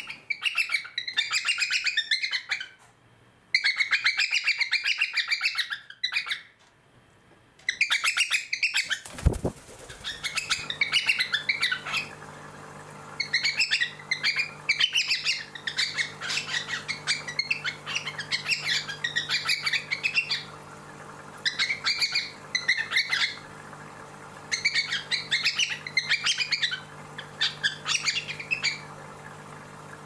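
Cockatiel chirping and chattering in repeated bursts of rapid notes, each a second or two long with short pauses between. From about a third of the way in, a low steady hum runs underneath.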